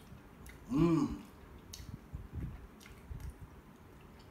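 A man eating a sticky glazed chicken wing: faint chewing and mouth clicks and the soft squish of the meat being pulled apart by hand. A short voiced 'mmm' rises and falls about a second in.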